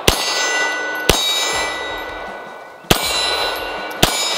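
Beretta M9 9mm pistol fired four times at an uneven pace, each shot followed by the long ringing of hit steel silhouette targets.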